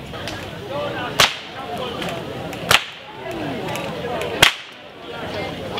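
Three sharp whip cracks about a second and a half apart, with faint voices murmuring between them.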